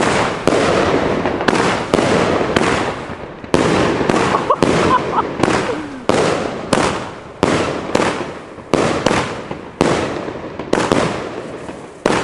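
A 30 mm strobe-star fireworks battery (Bonfireworks Great Strobe) firing shot after shot, about one or two a second, each sharp launch followed by a fading hiss.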